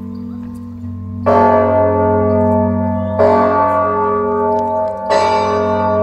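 Church bell struck three times, about two seconds apart, each stroke ringing on over a steady low hum.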